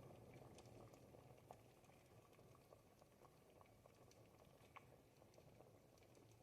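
Thick Tuscan ribollita soup faintly bubbling at a simmer over the fire: a low steady burble dotted with many small pops.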